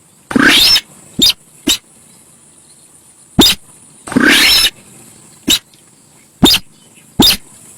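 Sintar sawah bird calling: a series of sharp, abrupt notes at irregular intervals, mixed with two longer, harsh calls, one about half a second in and one about four seconds in. This is the loud, agitated call used as a lure recording.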